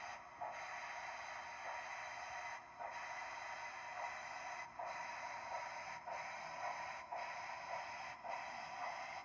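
On3 model steam locomotive running slowly along the track: a steady, quiet hiss with thin faint tones above it, broken by brief dips every second or two.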